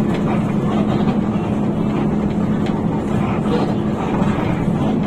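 Steady drone of a Hino RK8 bus's rear-mounted engine with road noise, heard from inside the moving bus, a constant low hum running under it.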